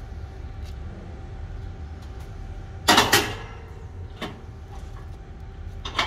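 Steel gate of an Arrowquip Q Catch MKII cattle crush being swung shut and latched: a loud metal clang about three seconds in, followed by a lighter click and another near the end.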